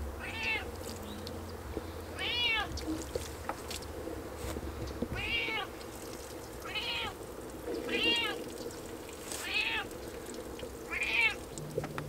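An animal calling: seven short calls, each rising and then falling in pitch, spaced one to two seconds apart, over a low steady hum that stops about halfway through.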